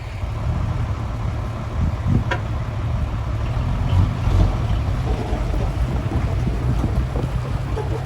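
Large truck engine running with a steady low rumble, with wind noise on the microphone.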